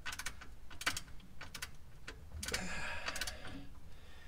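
Ratchet wrench clicking in irregular short strokes while the differential cover bolts are tightened to torque.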